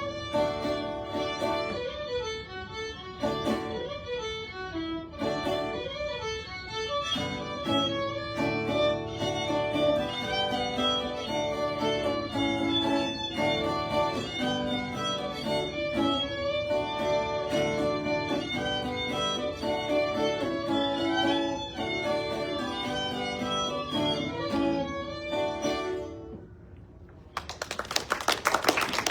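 Live folk instrumental on fiddle and guitar, a bowed melody over plucked accompaniment. The tune ends near the end and audience applause breaks out.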